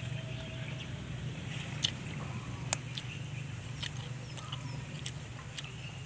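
Scattered sharp wet clicks of chewing and mouth noises, close to the microphone, over a steady low hum.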